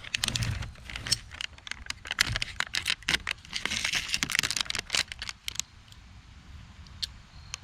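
Handling noise from a Tannerite target kit's packaging being opened and sorted: a dense run of clicks and rattles with crinkling around the middle, thinning out after about six seconds.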